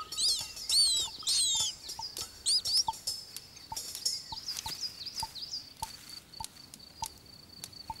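Great spotted cuckoo chick begging for food: rapid, repeated high chirping calls, each rising and then falling, loudest in the first three seconds, then fainter and sparser.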